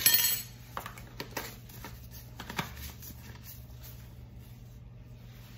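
Kitchen handling sounds around a stainless steel mixing bowl: a brief metallic clatter at the start, then scattered light clicks and taps of utensils and a spice container.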